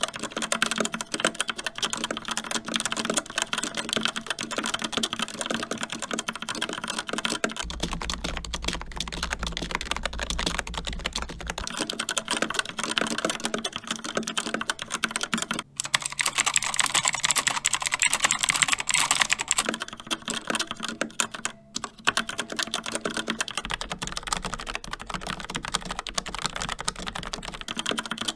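Fast, continuous typing on four keyboards in turn, each for about eight seconds: a mechanical keyboard with linear Outemu Red switches, then a semi-mechanical membrane keyboard, then a clicky mechanical keyboard with Outemu Blue switches that sounds brighter and clickier, then a tactile mechanical keyboard with Kailh Brown switches near the end. The sound of the keystrokes changes each time the keyboard changes.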